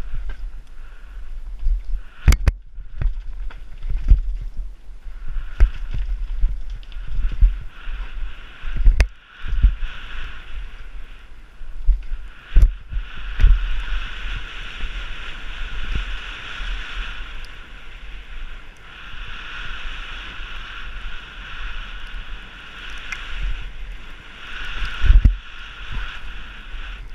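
Downhill mountain bike on a rough trail: steady wind rumble on the microphone and tyre noise, with sharp knocks as the bike hits bumps, the loudest about 2, 9, 12 and 25 seconds in.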